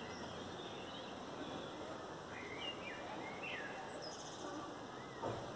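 Faint, steady outdoor background noise with small birds giving a few short chirps in the middle, and a single brief click near the end.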